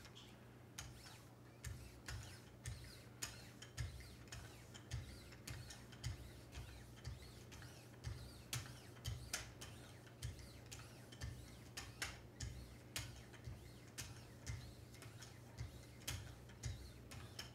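Wicked Edge guided sharpener being stroked by hand along a knife edge with paddles carrying 9-micron lapping film: a faint, steady run of light clicks, about two a second, as the paddles meet the blade.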